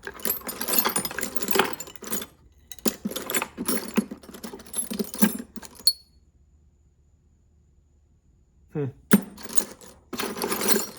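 Small metal tools clinking and rattling as they are handled in a toolbox drawer, in dense bursts. The rattling stops for about three seconds, then comes back after a short scrape and a sharp knock.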